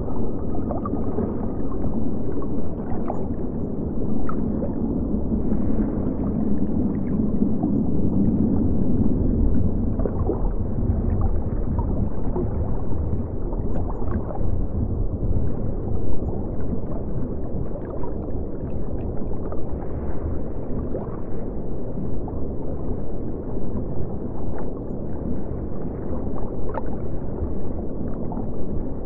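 Muffled underwater water sound: a steady low rumble with scattered small bubble pops.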